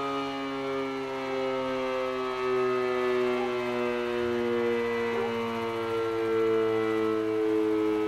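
Darley Champion electro-mechanical civil-defense siren sounding a steady alert tone during a short-alert test, its chord of tones sagging slightly in pitch.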